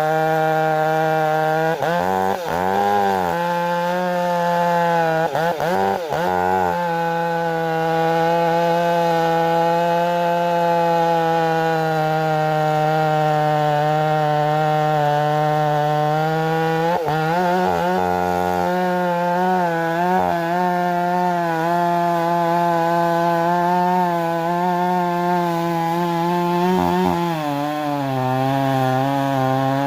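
Stihl MS 500i fuel-injected two-stroke chainsaw running at high revs, cutting wood. Its engine pitch dips briefly and recovers a few times, then settles a little lower near the end.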